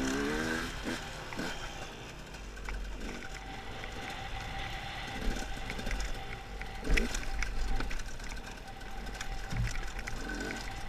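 Two-stroke KTM enduro motorcycle engine running on a rough dirt trail, revving up at the start, with sharp knocks and clicks from the bike over the bumps. The loudest knock comes about seven seconds in.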